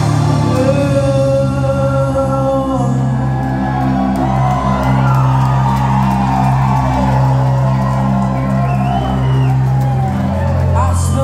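A live rock band playing, with electric guitars, bass and drums, and a singer's voice over the band from about four seconds in.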